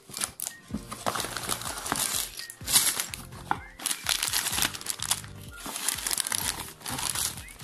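Clear plastic bags of toy building bricks crinkling and rustling in repeated bursts as they are handled, over background music.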